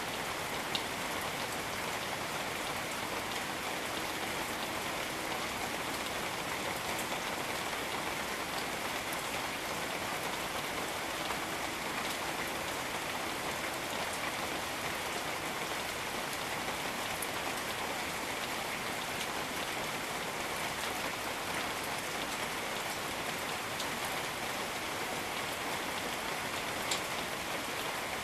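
Steady, even rainfall on jungle foliage, with a few single drops ticking nearby.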